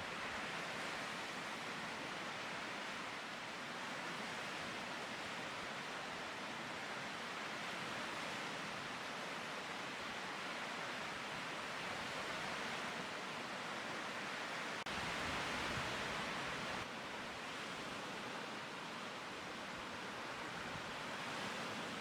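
Lake waves washing onto the shore: a steady rushing wash that swells and eases, loudest for about two seconds some two-thirds of the way through.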